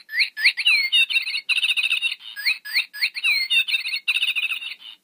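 Toy chick's sound chip playing recorded high-pitched chick peeping, quick rising and falling chirps in a short sequence that plays about twice and then cuts off.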